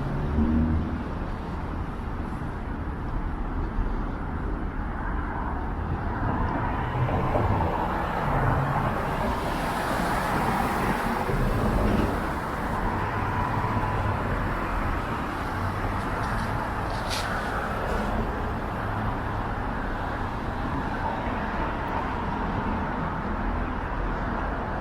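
Street traffic: cars driving past with steady engine and tyre noise, one passing louder near the middle.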